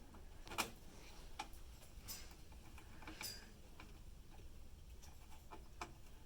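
Scattered light metallic clicks and taps of a screwdriver working a motherboard screw into a brass standoff in a computer case, at irregular intervals over a faint low hum.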